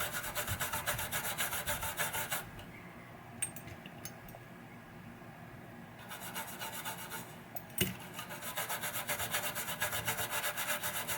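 A toothbrush scrubbing a circuit board with rubbing alcohol, in quick back-and-forth strokes, about five a second, to loosen old baked-on solder residue. The scrubbing stops for a few seconds in the middle and starts again, with a single knock just before it resumes steadily.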